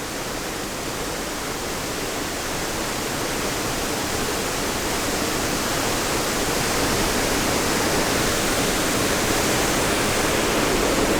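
Middle North Falls, a waterfall, sending up a steady rush of falling water that grows slowly louder.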